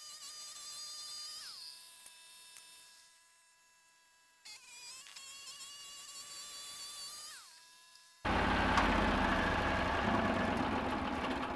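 Portable bandsaw mill running: a faint high whine that steps down in pitch about a second and a half in, fades, comes back about four and a half seconds in and drops again. About eight seconds in a sudden loud, steady engine noise starts.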